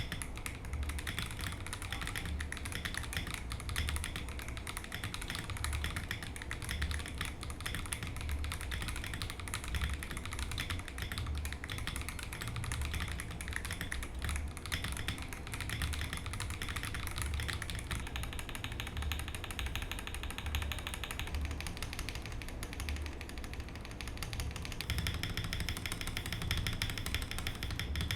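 Typing on an Akko 5075B Plus gasket-mounted mechanical keyboard: a fast, unbroken run of keystrokes.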